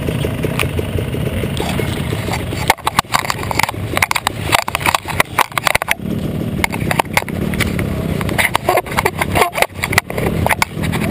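Dirt-bike engine idling steadily, overlaid by a run of sharp knocks and rattles from about three seconds in to the six-second mark, and again near the end.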